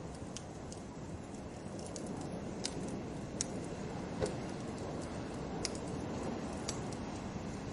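Wood fire burning in a fireplace: a steady low rush of flames with sharp crackles and pops every second or so, the loudest pop about four seconds in.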